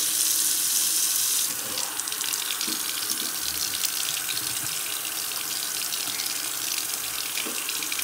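Kitchen tap running at full flow through a flow-measuring weir gauge cup and splashing into a ceramic sink, louder for about the first second and a half, then steady. This is a water flow-rate test, reading about 10 litres a minute.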